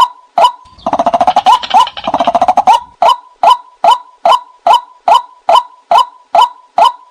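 White-breasted waterhen call used as a hunting decoy: a loud short note repeated steadily about two and a half times a second. From about one second in to nearly three seconds, a rapid chattering call runs over the repeated notes.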